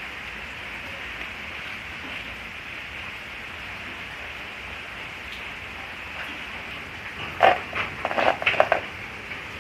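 Typhoon rain falling steadily as a continuous hiss. Near the end comes a quick cluster of several sharp, loud sounds lasting about a second and a half.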